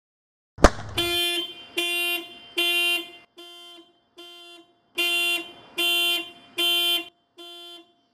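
A sharp thump, then a car horn sounding in a steady series of short honks, a little more than one a second, some loud and some fainter.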